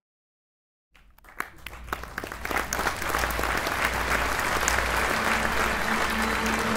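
Audience applause: a few scattered claps about a second in, swelling within a couple of seconds into full, steady clapping.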